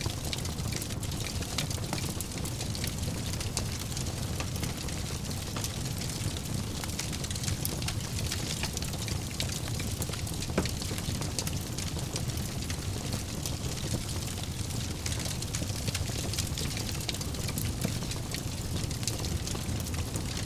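Wood fire burning in a fireplace: a steady low rush of flame with many small crackles and snaps, and one louder pop about halfway through.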